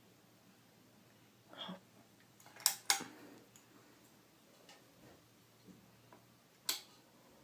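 Ceiling fan motor humming faintly and steadily, with a few sharp clicks: two close together about two and a half seconds in, and one near the end.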